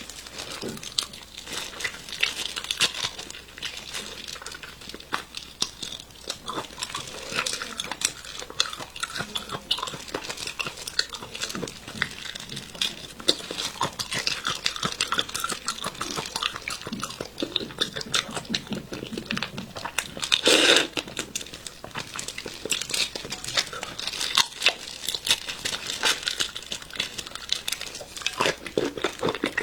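Close-miked eating of raw marinated prawns: shells crackling and tearing as they are peeled and bitten, with crinkling and chewing sounds, and one louder crunch about two-thirds of the way through.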